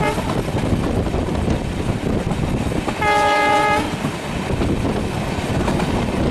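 Broad-gauge train running past with a steady, heavy rumble of wheels on the rails. About three seconds in, a train horn sounds one short chord-like blast of under a second.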